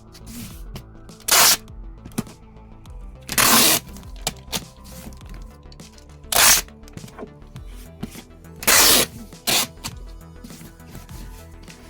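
Quiet background music, broken by five loud, short ripping noises spaced a few seconds apart as packing materials are handled. Each rip lasts under half a second.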